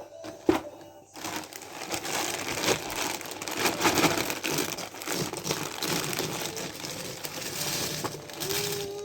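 Thin plastic jigsaw puzzle pieces being rummaged and shuffled, a continuous crinkling rustle full of small clicks that starts about a second in.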